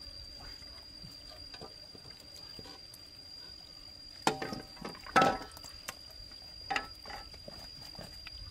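A wok being stirred with metal utensils: three short scraping clatters a little over four, about five and nearly seven seconds in, the second the loudest. A steady high insect drone runs underneath.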